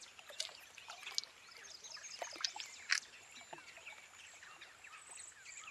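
Faint outdoor ambience with birds chirping and calling, scattered small ticks, and a thin steady high hiss.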